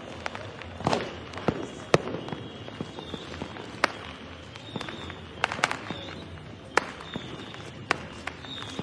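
Diwali firecrackers going off at irregular intervals, about ten sharp bangs of varying loudness, the loudest about two seconds in, over a steady background of crackling from many crackers. Faint short whistles from fireworks come now and then.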